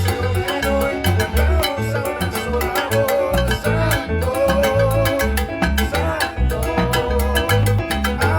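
Upbeat salsa-style Latin dance music: a syncopated bass line, busy hand percussion and a wavering melody line over it.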